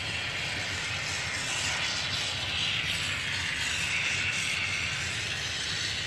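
Can of expanding polyurethane foam hissing steadily as a bead of foam is dispensed onto a foam insulation board.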